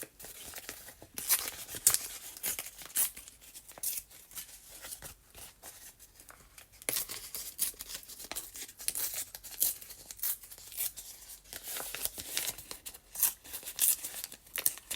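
Paper being handled and worked into a pocket, rustling and crinkling in many short, irregular strokes.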